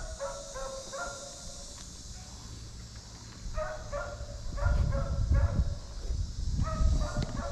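Hog-hunting dogs yipping and whining in short high calls, in three bouts with pauses between, and a low rumble under the middle bout.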